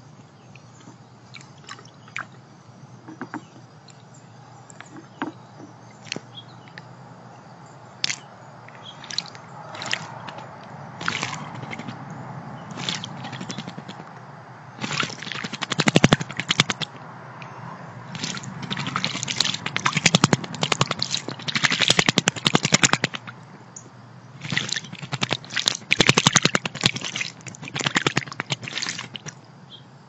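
American robin bathing in a birdbath, beating its wings in the water to make rapid splashing in three bouts through the second half. Scattered single taps and drips come before the bathing starts.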